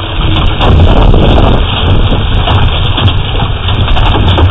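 Loud hailstorm: wind and heavy rain with scattered hard hits of hail, picked up by a security camera's microphone with heavy low wind buffeting.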